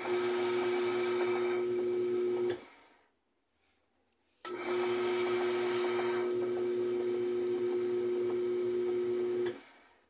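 General Electric washing machine's drive motor running, turning the transmission pulley by its belt, with a steady hum and a steady whine. It stops about two and a half seconds in, is silent for nearly two seconds, then runs again and dies away near the end.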